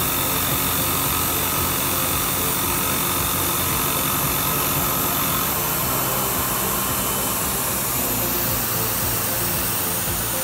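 Tormach PCNC 770 CNC mill's end mill cutting quarter-inch aluminum plate: a steady spindle whine over continuous cutting noise, with background music.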